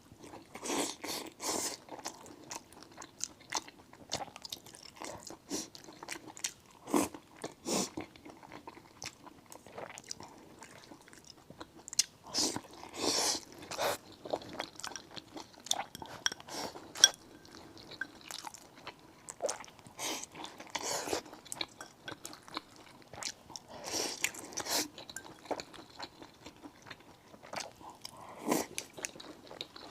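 Close-up eating sounds: irregular crunching bites and chewing of crisp food, heard throughout.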